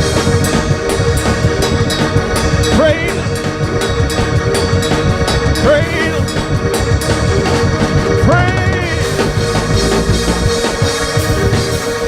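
Lively music with organ, drums and bass, with short sliding vocal cries about every three seconds.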